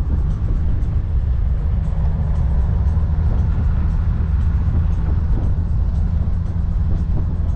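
Triumph TR5's 2.5-litre straight-six engine running at a steady cruise, heard from the open cockpit mixed with road and wind noise.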